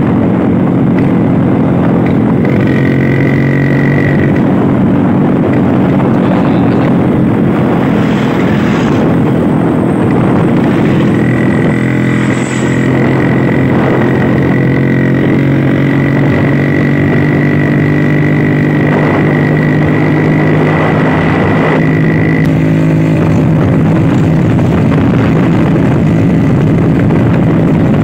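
Vintage Vespa scooter's two-stroke single-cylinder engine running steadily under way, with road noise. A thin, high, steady whine joins it briefly near the start and again for about ten seconds in the middle.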